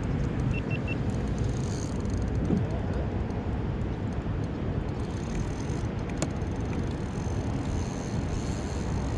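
Steady wind rumble on the camera microphone, with three quick faint beeps about half a second in.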